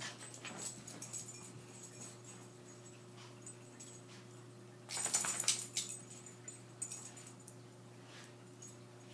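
A large dog and a small dog play-fighting: scuffling and dog noises, loudest in a flurry about five seconds in, over a steady low hum.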